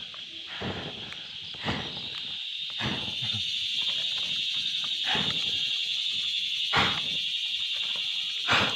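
A man blowing hard on a campfire to fan the flames, about six gusts of breath a second or two apart, over a steady high-pitched chorus of insects.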